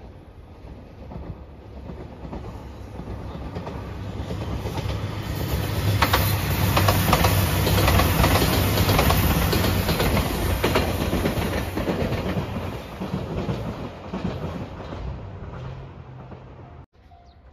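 JR Shikoku 2700 series diesel express train passing. Its engine rumble builds as it approaches and the wheels clack over rail joints at the loudest point, about six to eleven seconds in. Then it fades away until the sound cuts off abruptly near the end.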